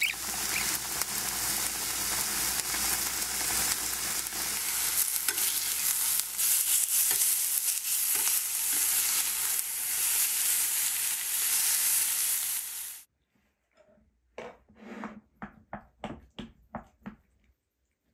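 Slices of beef sizzling in a hot frying pan: a steady, loud frying hiss that cuts off suddenly about thirteen seconds in. After it come a few short, quieter sounds in quick succession.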